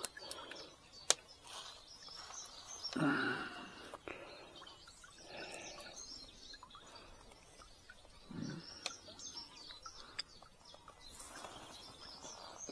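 Small birds chirping and calling steadily, with a few sharp clicks and a brief louder low sound about three seconds in.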